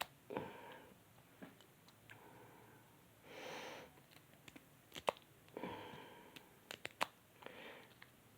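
Faint, irregular metal clicks of a bobby pin working the pins of a small four-pin aluminium padlock held under paper-clip tension, with about four short breaths through the nose in between.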